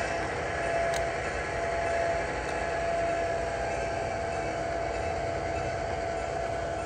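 HO scale model train running, a steady mechanical hum with a steady whine over it and a single click about a second in.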